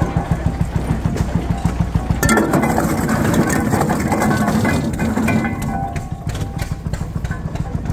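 Old engine-driven rock crusher running with a steady, rapid knocking beat. A little over two seconds in, rocks in its hopper crunch and rattle through the crusher for about three seconds, then the beat carries on alone.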